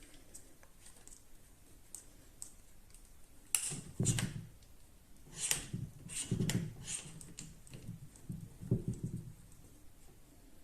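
Handling noise from a small metal tripod fluid head: light clicks and a few soft knocks as it is moved and its parts are worked by hand, the knocks about four and a half, five and a half, six and a half and nine seconds in.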